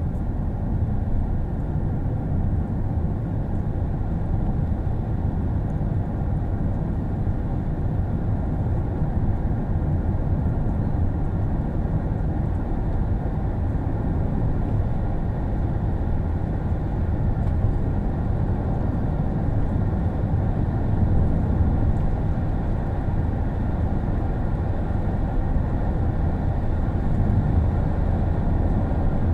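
Steady road and engine noise of a moving car heard from inside it, a low, even rumble that does not change.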